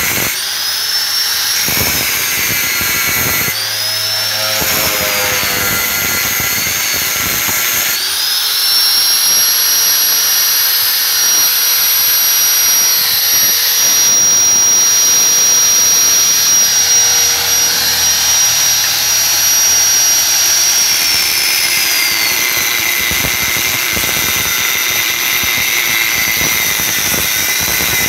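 Electric angle grinder with an abrasive cut-off disc cutting into a chrome motorcycle muffler. The motor's whine dips and wavers under load at first. From about eight seconds it rises to a steady high free-running whine with the disc lifted off the metal. A little past twenty seconds it drops again as the disc bites back into the pipe.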